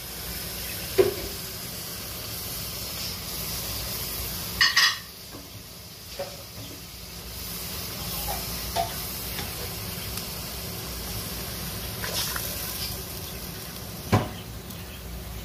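Onion-based liquid bubbling and sizzling in an aluminium pressure cooker pot as a silicone spatula stirs it, with a steady hiss throughout. A few sharp knocks of the spatula against the pot, the loudest a little under a third of the way in and another near the end.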